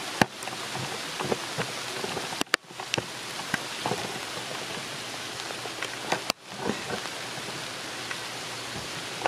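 Summer thundershower rain pouring down, with many sharp taps of drops striking close by. The sound dips out briefly twice, about two and a half and six seconds in.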